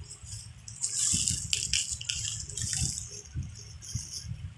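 Bubble wrap being handled and peeled off a wrapped item, rustling and crinkling, with a dense spell of crackling from about one to three seconds in over soft handling thuds.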